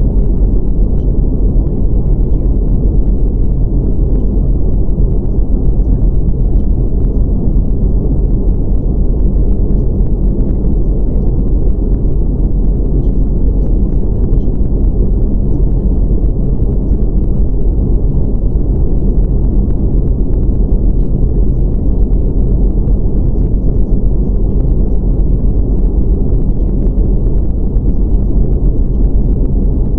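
Steady, deep rumbling noise that does not change, with almost nothing high-pitched in it: the masking sound of a subliminal track, with affirmations buried beneath it.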